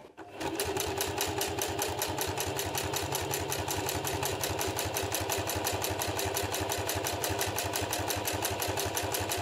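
Singer Heavy Duty 4432 sewing machine running on its motor at a steady speed, stitching through leather in a fast, even rhythm of needle strokes. It starts right at the beginning and stops near the end.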